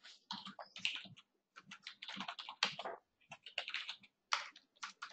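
Typing on a computer keyboard: keys clicking in quick, irregular runs with short pauses between them.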